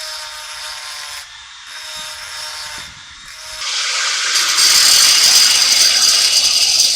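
A power tool working metal: a steady motor whine with a high, hissing cutting sound, in several short cuts. About halfway through it gets much louder and harsher as the tool bites harder.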